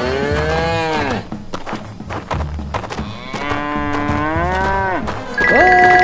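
Cow mooing twice, two long calls, the second starting about three seconds in, each sliding down in pitch at its end. Near the end a louder steady high tone and a wavering lower note cut in abruptly.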